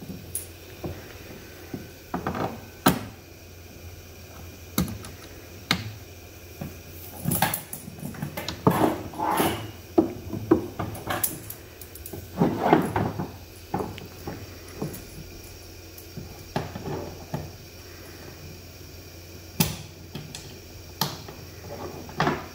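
Handling noise as a heavy rubber-jacketed cable is uncoiled and pulled out of a hard plastic equipment case: irregular scrapes and rustles with sharp knocks and clicks against the case.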